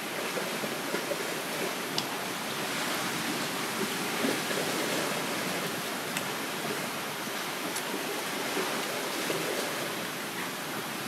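Steady outdoor rushing noise with a few faint sharp clicks.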